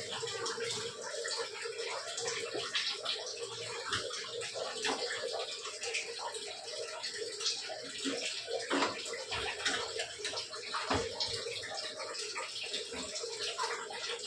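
Water running steadily, with small knocks and clatter from wiping down the tiled wall and steel gas stovetop with a cloth.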